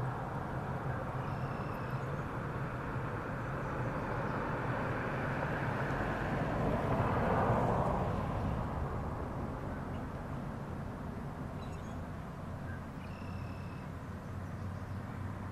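Road traffic noise with a low engine hum, one vehicle passing that swells to its loudest about seven seconds in and then fades.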